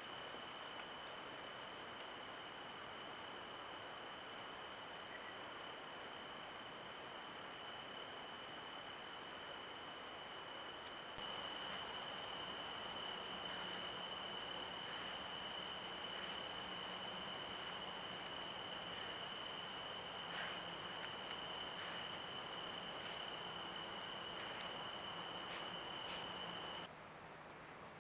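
Late-summer insect chorus: crickets trilling steadily at a high pitch, growing louder about eleven seconds in and cutting off suddenly near the end.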